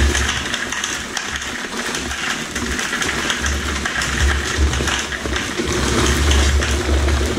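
Dry high-strength Quikrete concrete mix pouring from a paper bag into a 5-gallon bucket: a steady rushing hiss of falling powder and gravel, with the paper bag rustling as it is shaken.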